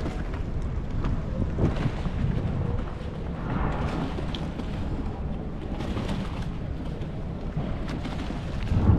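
Lagoon waterfront ambience: a steady low rumble of wind and lapping water around moored gondolas, with a few bird calls.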